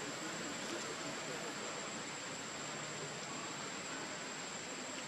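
Steady outdoor hiss with a thin, constant high-pitched tone running through it; no distinct events.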